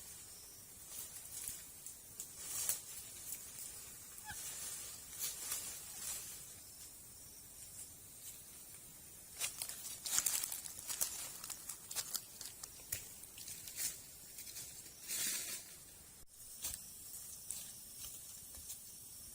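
Irregular rustling and scraping of hands working rough natural material, a series of short scratchy sounds, with a longer scrape about fifteen seconds in.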